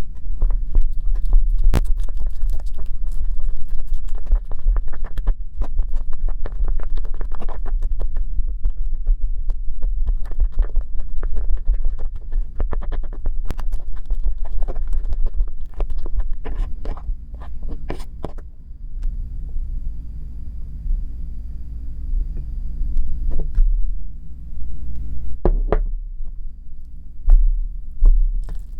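Homemade toothpaste-and-salt slime being worked by hand, giving a dense run of sticky clicks and pops over low thumps. The clicks thin out to a few scattered ones from about two-thirds of the way through.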